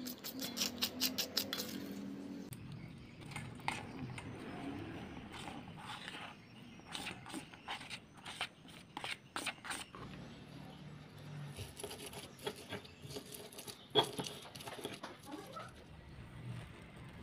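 Stone pestle crushing and grinding sweet corn kernels in a stone mortar. A quick run of sharp taps in the first two seconds, then scattered knocks and gritty scraping, with one louder knock about fourteen seconds in.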